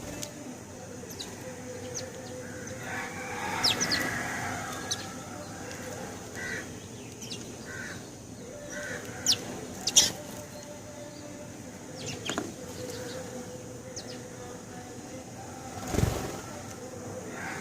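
House sparrows chirping in short, scattered calls, a couple of them louder about halfway through. There is a dull thump near the end.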